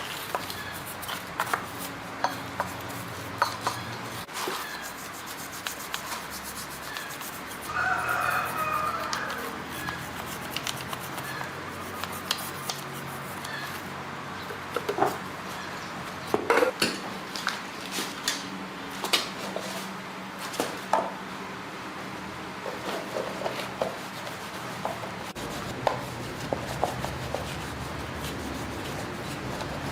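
A rooster crowing, once just as the sound begins and again about eight seconds in. Scattered sharp clicks and knocks, like tools being handled, sound throughout over a faint steady low hum.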